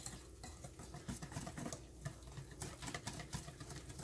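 Wire whisk beating batter in a stainless steel bowl: quick, light clicking of the wires against the metal, with the batter sloshing.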